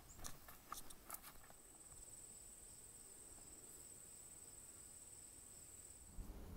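An insect trilling steadily at a high pitch, faint, after a few light clicks in the first second. A low rumble comes in near the end.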